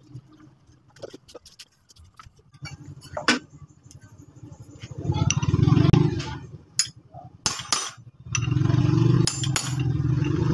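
Metal motorcycle clutch parts clicking and clinking as they are handled and fitted together. A steady buzzing rattle comes in for a second or so around the middle, then again louder over the last couple of seconds.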